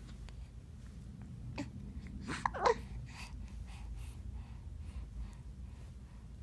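A small child hiccuping: a sharp hiccup about one and a half seconds in, then a louder voiced squeak falling in pitch a second later, with faint breaths after it.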